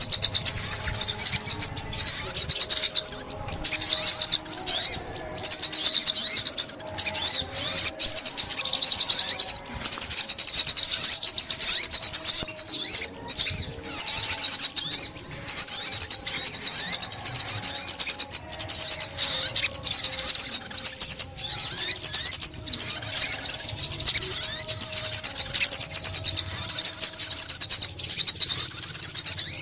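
Sunbird song: rapid, high-pitched twittering trills that run almost without a break, interrupted by short pauses every few seconds.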